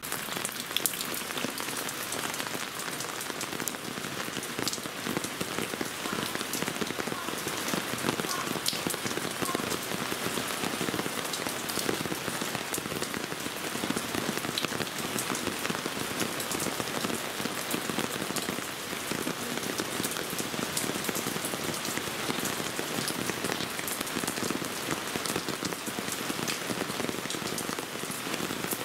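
Steady rain pattering on a surface, a dense, even hiss of many small drops.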